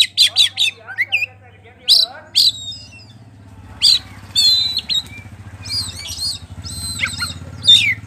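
Oriental magpie-robin (kacer poci) singing loudly and continuously. Quick clusters of sharp whistled notes sweep down in pitch at the start and again near the end, with varied squeaky, warbling phrases in between.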